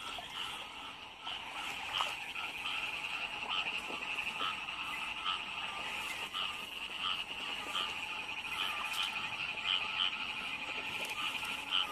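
Dense chorus of many frogs calling at once after heavy rain: a high, continuous trilling layer with lower, shorter calls repeating over it.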